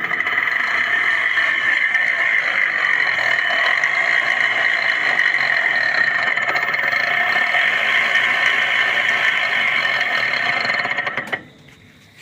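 Terra Motors Y4 e-rickshaw's electric drive motor running with a loud, steady, noisy whirr that stops about eleven seconds in. The mechanic puts the noise down to the motor's bearing and shaft.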